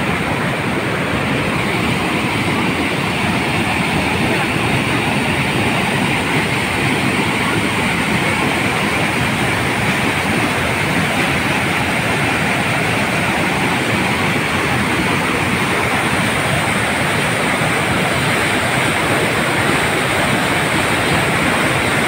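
Floodwater from an overflowing lake rushing over a stone weir and down its outflow channel: loud, steady white-water noise.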